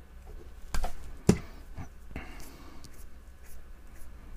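Handling noises from working on a hair straightener's mains cable: a few sharp clicks and knocks as the flex and small hand tools are handled and set down on a rubber mat, the loudest knock about a second and a half in, followed by light ticks.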